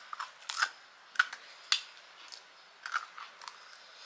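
Crisp, hard panipuri shells crunching as they are chewed close to the microphone: a string of short, sharp, irregular crunches, the loudest about a second in and just after.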